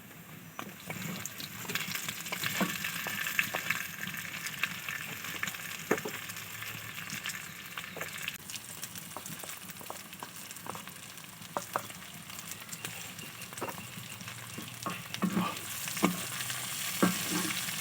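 Onion, capsicum and chillies sizzling in hot oil in a pan as they are stir-fried, with a spatula scraping and knocking against the pan now and then.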